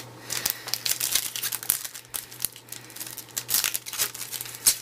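Foil wrapper of a 2012 Topps Opening Day baseball card pack crinkling as it is handled and torn open: a dense run of irregular crackles.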